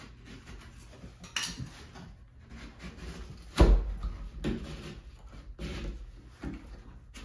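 Wooden knocks and clatter from fitting shims between an interior door jamb and its framing. A light click comes first, then one heavy thump about halfway, then a few softer knocks.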